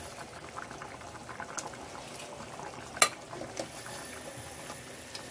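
Hot food in a pan bubbling and crackling with many small pops, and one sharp clink of a utensil or pan about three seconds in.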